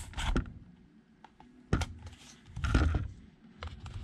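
Plastic case of a Weize 10Ah LiFePO4 battery being pried open with a blade tool: sharp cracks and clicks as the glued seam gives. A longer scraping crackle comes about three seconds in.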